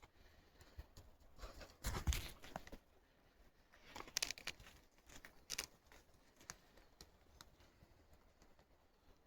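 Intermittent rustling and crinkling with a few brief scrapes, the loudest about two seconds in and again around four and five and a half seconds in.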